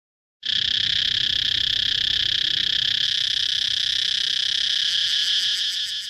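Periodical cicada call: a loud, steady, high-pitched buzz that starts suddenly about half a second in and eases off slightly near the end.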